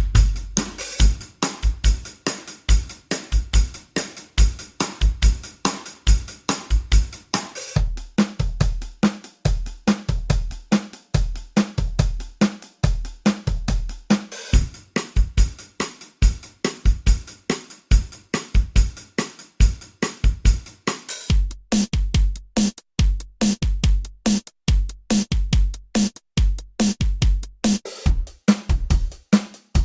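Programmed drum-pedal beat with kick, snare, hi-hat and cymbals playing a steady groove. About 21 s in, the beat changes to a tighter pattern with less cymbal wash.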